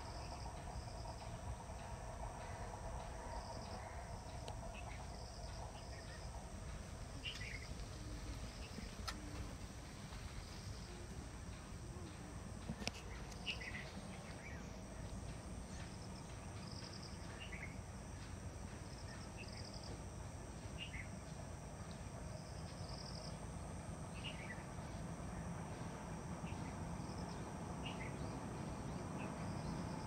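Outdoor insect chirping, short pulses repeating in pairs throughout, with short falling bird chirps every few seconds and a steady low rumble underneath.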